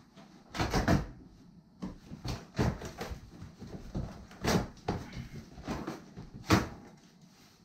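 Cardboard box and packing being handled as a portable generator is unpacked: a run of rustles, scrapes and knocks, loudest about half a second in, at about four and a half seconds and at about six and a half seconds.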